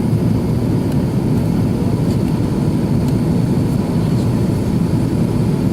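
Airbus A330-300's jet engines and rushing air heard from inside the passenger cabin: a steady, loud, low rumble in flight.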